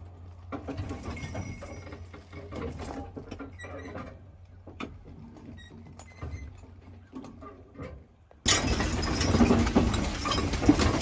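Wagon and harness of a standing Haflinger team creaking and clinking in scattered small clicks. About eight seconds in, a sudden loud steady rushing noise takes over.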